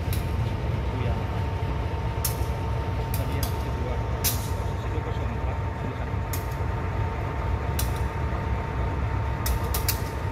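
Train in a station: a steady low rumble with a thin, steady tone above it, and sharp clacks every second or two, like wheels crossing rail joints.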